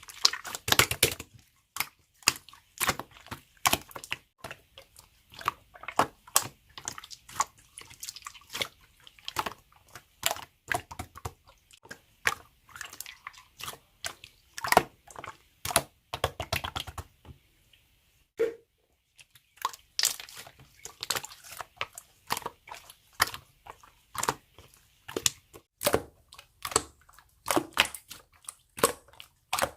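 Slime being squeezed, stretched and pressed by hand, a dense run of sharp pops, clicks and crackles, with a short pause about two-thirds of the way through.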